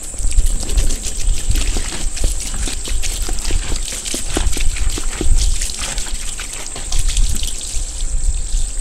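Sudsy pine-cleaner solution trickling and pouring from a squeezed sponge into a stainless steel bowl, with wet crackling and dribbling. A steady high chorus of crickets sounds underneath.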